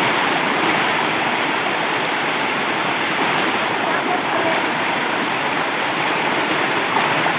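Water of a hill-stream waterfall rushing steadily, an even, unbroken sound with no distinct events.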